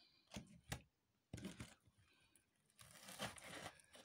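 Faint handling sounds of a knife cutting open a sea bass's stomach on a plastic sheet: a few soft taps in the first two seconds, then a brief rustle about three seconds in.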